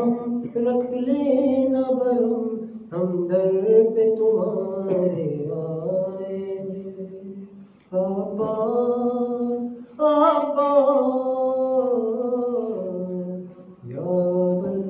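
A man chanting an unaccompanied Urdu munajat, a devotional supplication, in long, slowly gliding melodic phrases separated by short pauses for breath.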